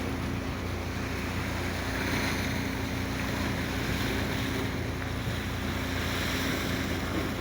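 Steady rush of wind and sea water with a faint, even low engine drone, as on a small boat underway; wind buffets the microphone.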